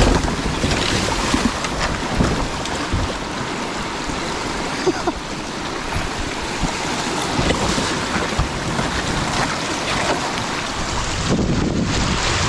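Shallow river rapids rushing around a kayak, with short splashes and knocks from paddling through the riffle and wind buffeting the microphone.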